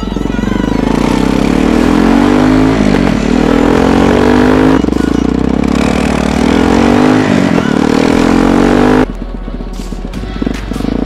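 Minsk X250 motorcycle engine accelerating through the gears: the revs climb, fall back at each upshift about three times, then the throttle closes about nine seconds in and the engine runs lower before picking up again near the end. Wind rushes over the helmet-mounted microphone.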